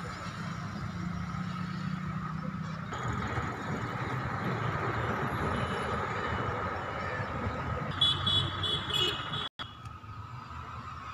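Diesel bus engine idling steadily. About eight seconds in, a rapid high-pitched beeping lasts about a second, and the sound cuts out for a moment soon after.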